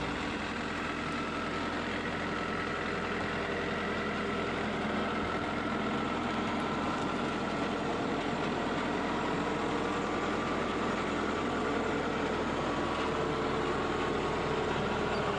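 Tractor engine running steadily as the tractor drives slowly over a newly built wooden plank bridge, passing directly above the camera on the deck. The planks take the load without cracking or creaking.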